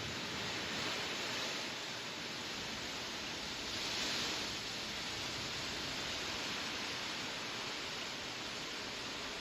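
Skis sliding over snow with a steady hiss, mixed with wind; the hiss swells briefly about a second in and again, more strongly, about four seconds in.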